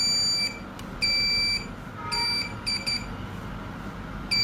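Home security alarm panel beeping a high steady tone: half-second beeps at the start and about a second in, a cluster of shorter beeps around the middle, and another beep at the end. These are the warning beeps of the delay-zone countdown, set off by triggering the wireless doorbell while the system is armed.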